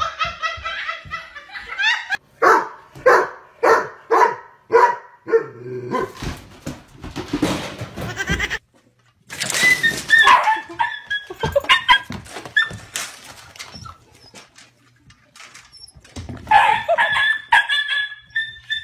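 A dog barking in a quick run of about seven evenly spaced barks, then making longer drawn-out calls that slide in pitch.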